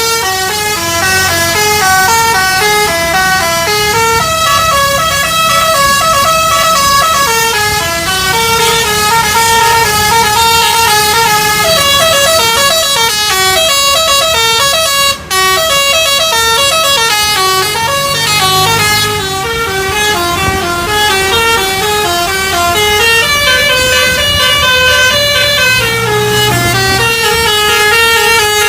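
Bus 'telolet basuri' musical horn playing a tune of quick stepped notes over a low engine hum. The sound cuts out for an instant about halfway through.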